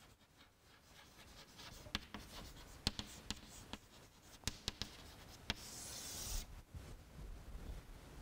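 Chalk writing on a chalkboard, faint: a run of quick taps and scratches as words are written, then one longer scraping stroke about six seconds in as the heading is underlined.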